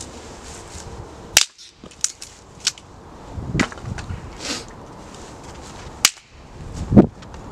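Dry dead sticks being snapped: a sharp crack about a second and a half in and another near six seconds, with smaller cracks and crunches between, and dull thumps of wood, the loudest just before the end.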